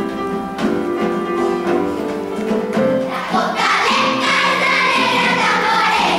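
Children's choir singing with piano accompaniment. The voices get louder and higher about three and a half seconds in.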